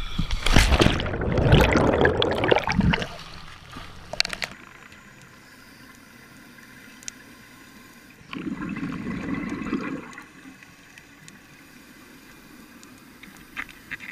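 Splash and rushing, churning water for about three seconds as a scuba diver's camera goes into the sea, then the muffled hush of underwater audio. About eight seconds in, a burst of bubbling lasting a second or two, the diver's regulator exhaust bubbles.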